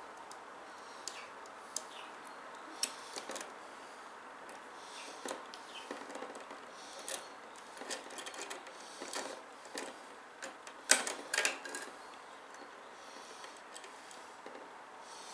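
Scattered clicks and taps of computer hardware being handled and fitted on a motherboard, with a louder cluster of clicks about eleven seconds in.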